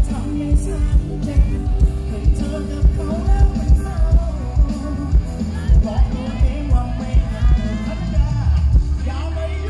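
Live pop-rock band playing, with a male lead vocalist singing over a heavy bass and a steady drum beat.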